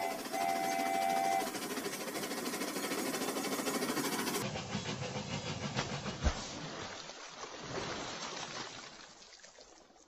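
Toy train whistle sounding a steady two-note chord twice in quick succession, followed by a steady steam-like hiss. There is a single sharp thump about six seconds in, and the hiss then fades away.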